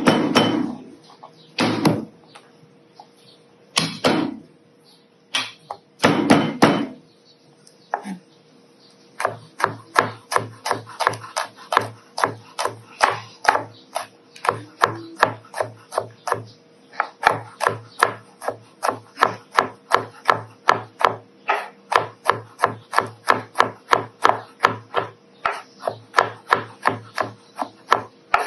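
Chef's knife chopping garlic on a bamboo cutting board. First come a few separate heavy knocks, then from about a third of the way in a fast, even run of chops, about three strokes a second, with short pauses.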